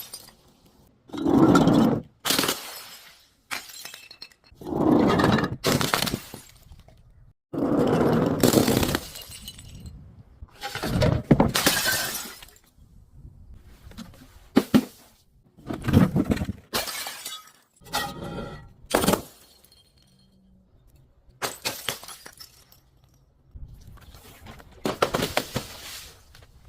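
Glass bottles breaking and being crushed: a string of crunching, shattering bursts, each under about a second, one after another with short gaps.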